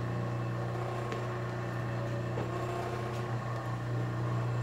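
The industrial electric motor of a 1950s Singer 31-15 sewing machine, just started, running with a steady low hum.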